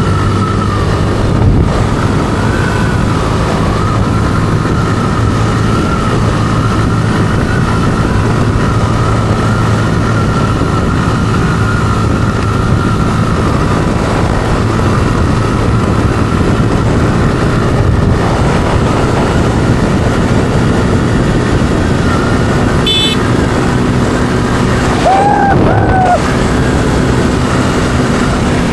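Steady road vehicle noise: engines running with traffic noise, over a wavering whine. A short high beep comes about twenty-three seconds in, and a brief wavering tone follows a couple of seconds later.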